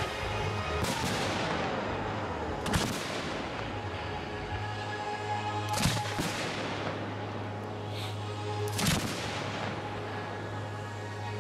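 Aerial fireworks shells bursting during a pyromusical display: four loud reports two to three seconds apart, each trailing off in echo, with the show's music playing underneath.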